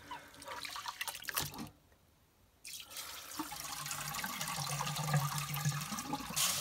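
Rice grains swished by hand in a glass bowl of water, splashing, then after a short break the cloudy rinse water poured off through a metal sieve into the sink in a steady stream.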